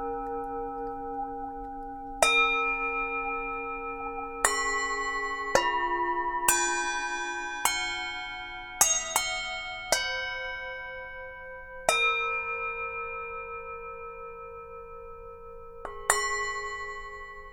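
Tibetan singing bowls struck with a mallet about ten times, at several different pitches, the strikes bunched together in the middle. Each strike rings on in long overlapping tones that slowly fade, some with a slow wavering pulse.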